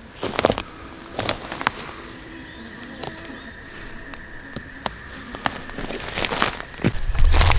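Footsteps and rustling in forest-floor plants, with sharp crackles of stems and leaves as fiddleheads are picked, and heavy low thuds near the end as boots step right beside the microphone. A steady high trill of toads calling runs underneath from about two seconds in.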